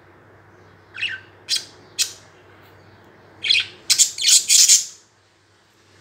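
Budgerigars calling: three short, high calls about half a second apart, starting about a second in, then a quicker run of four or five louder calls near the end.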